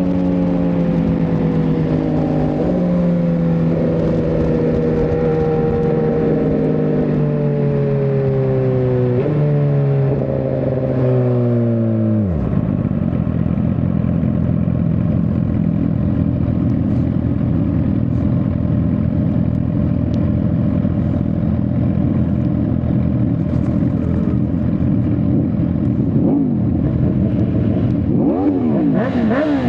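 Suzuki GSX-R1000R inline-four engine slowing down. Its pitch falls for about twelve seconds and jumps up several times as it is downshifted, then drops to a steady low idle. Near the end it revs up and down in quick blips.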